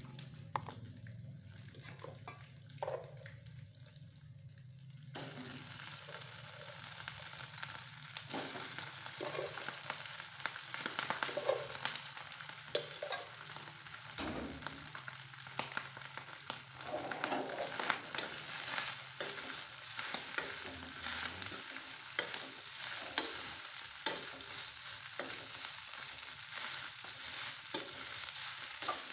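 Rice frying in a wok over a gas burner: steady sizzling, with a spatula scraping and knocking against the pan as the rice is stirred. The first few seconds are quieter, with a few knocks as rice is scooped from a rice cooker pot, and the sizzling starts suddenly about five seconds in.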